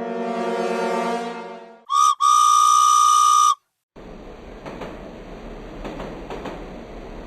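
A held chord of music fades out, then a train whistle gives a short toot and a long steady blast. After a brief gap a train runs along the rails with a rumbling, rhythmic clatter.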